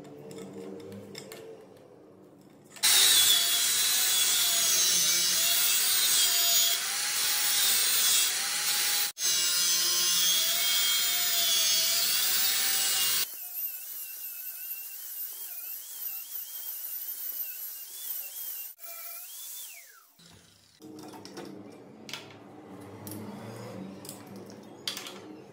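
Angle grinder with an abrasive cutting disc cutting into the steel shell of a refrigerator compressor. It runs loud for about ten seconds, its whine wavering in pitch as the load changes, with a brief break near the middle; the second half is much quieter.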